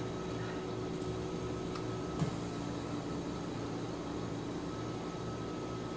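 Steady mechanical hum, like a fan or air conditioner running, with a single short click about two seconds in.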